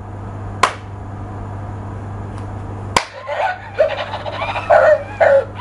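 Interactive plush toy dog: two sharp mechanical clicks from its mechanism over a steady low hum, then, from about three seconds in, a string of short, high, wavering electronic yelps from its speaker as it rears up on its hind legs.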